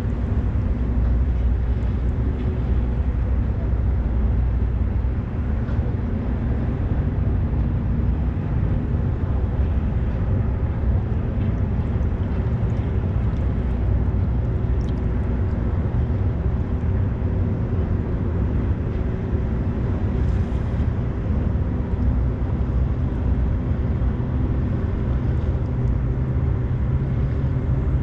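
Steady low rumble of a Great Lakes freighter's diesel engines as the ship moves through the canal, with wind buffeting the microphone.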